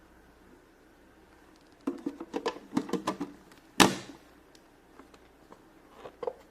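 Small plastic toy pieces and a plastic playset being handled: a run of light clicks and clatter, then one sharp, louder plastic click or knock, and a few small clicks near the end.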